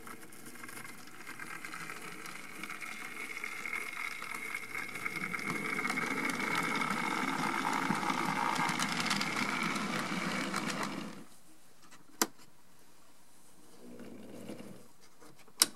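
Model train running on track: the diesel switcher's motor whirring and the hopper cars' wheels rattling over the rails, growing louder as the cars pass close, then dying away about eleven seconds in. Two sharp clicks follow, one about a second later and one near the end.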